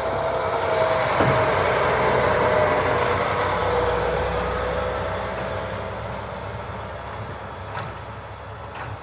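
Snowplow truck driving past close by. Its noise rises to a peak in the first few seconds, then fades steadily as it drives away.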